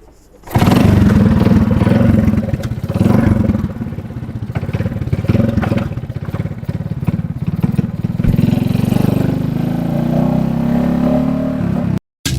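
Motorcycle engine starting abruptly about half a second in and running loudly, revving up and down several times, then cutting off suddenly near the end.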